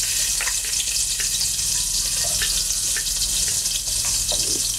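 Chopped onions sizzling in hot oil in a pot: a steady frying hiss, with a few light clicks of a spatula scraping the onions off a plate.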